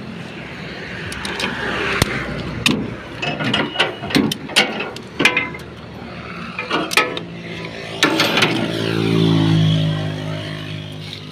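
Irregular sharp knocks and metal clanks as a videoke speaker cabinet is shifted about inside a tricycle sidecar's metal frame. About eight seconds in, a motor vehicle's engine comes close, grows louder, then eases off as it passes.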